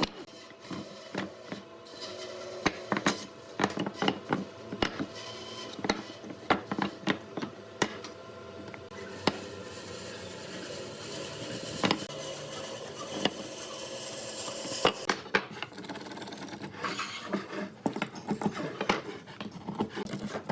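Hand work on wood: irregular knocks and taps with rubbing and scraping of wood, over a faint steady hum.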